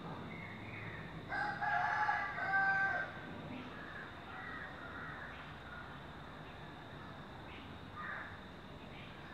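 Indian peacock giving its loud call about a second in, two drawn-out honking notes in quick succession, with fainter bird calls before and after.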